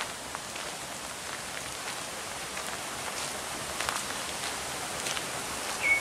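Footsteps crunching on a gravel forest track, faint and irregular, over a steady hiss of running creek water. A short high whistled note sounds near the end.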